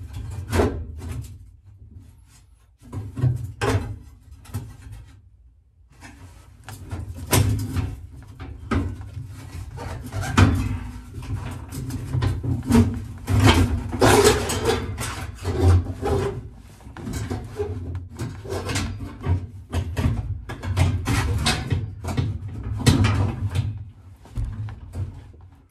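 Sheet-metal rear package tray being worked into place by hand around a roll bar: irregular knocks, clunks and scraping of metal against metal and trim. A few knocks at first, then a dense run of them from about six seconds in.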